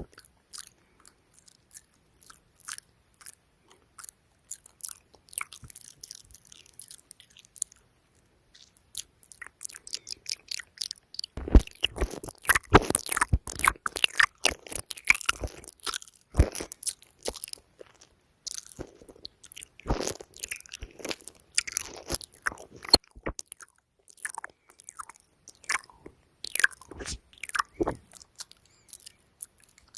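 ASMR mouth sounds close to the microphone: quick clicks and smacks of lips and tongue. They come sparsely at first, turn dense and louder about eleven seconds in, then thin out again after about twenty-three seconds.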